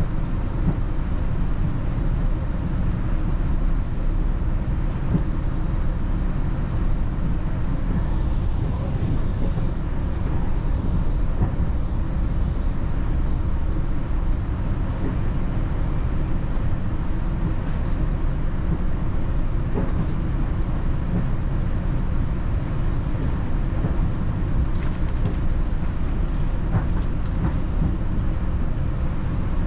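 Steady low rumble of a Northstar commuter train running, with a few faint light ticks in the second half.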